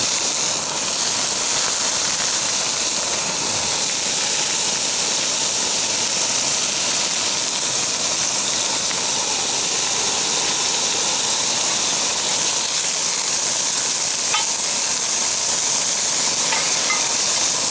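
Diced ham, onions and chanterelle mushrooms frying in a hot skillet: a steady sizzle that holds throughout, with the food stirred by a spatula near the end.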